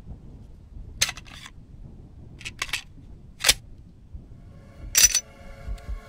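A handful of sharp gunshot sound effects at uneven intervals, the loudest about five seconds in. A steady droning chord starts just before the end.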